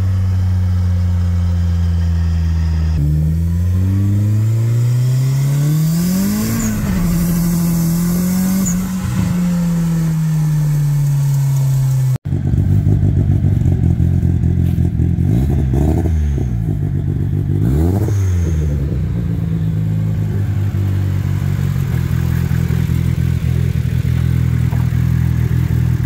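Turbocharged Nissan engine heard from inside the cabin on the move: steady, then climbing and dropping in pitch through the revs. After a cut, the same car idles with its hood open and is blipped twice in quick succession.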